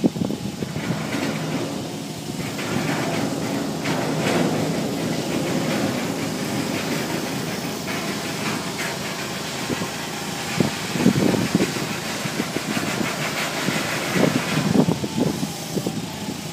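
TCM forklift's engine running steadily while it lifts and tilts a heavy steel sculpture, with a few knocks around the middle and again near the end.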